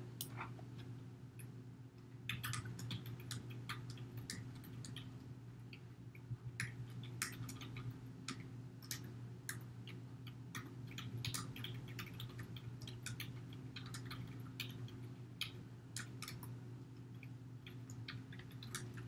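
Computer keyboard keys clicking in irregular runs as code is typed, over a faint steady low hum.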